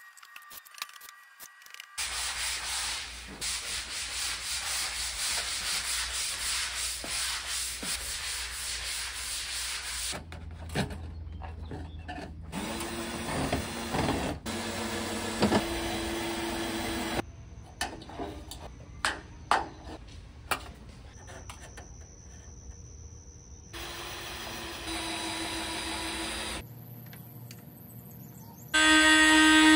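Short clips of building work cut one after another: about eight seconds of steady scraping strokes of a tool on drywall, then shorter stretches of knocks, clicks and hum. Near the end a power drill starts up loudly.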